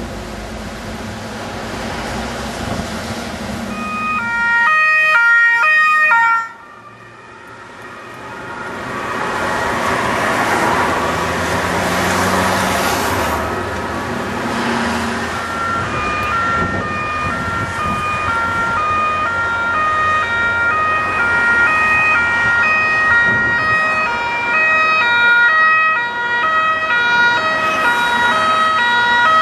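Two-tone emergency siren alternating between a high and a low note: a loud burst about five seconds in that cuts off abruptly, then road traffic passing, then from about halfway an ambulance's two-tone siren sounding steadily and growing louder as it approaches.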